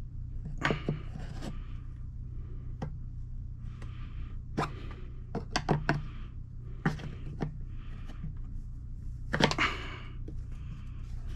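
Large flathead screwdriver prying at a stuck Subaru Impreza GC8 windshield washer pump seated in its rubber grommet: irregular clicks and knocks of metal on plastic, with rubbing in between, as the pump refuses to come free.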